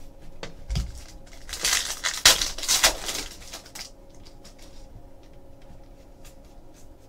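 Trading cards being handled by hand: cards sliding and flicking against one another, with light clicks throughout. A louder rustling burst runs from about a second and a half to four seconds in.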